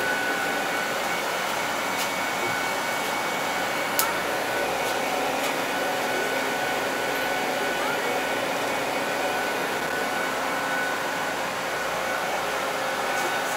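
Steady mechanical whir of an inclined-tower funicular cabin running along its track, heard from inside the cabin, with a few faint steady high tones. A single sharp click comes about four seconds in.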